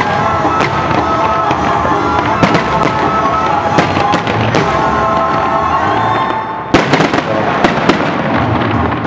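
Fireworks display: aerial shells bursting one after another with crackling, over steady music. A rapid cluster of the loudest bangs comes about two-thirds of the way through.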